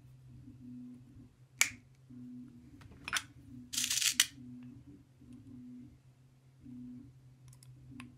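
Small metal and plastic parts handled by hand: a sharp click about a second and a half in, another about three seconds in, a short rattle soon after, and a few light ticks near the end, over a steady low hum.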